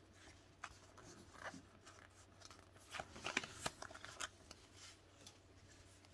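Pokémon trading cards being handled and slid through a stack by hand: quiet scattered flicks and scrapes of card on card, busiest about three to four seconds in.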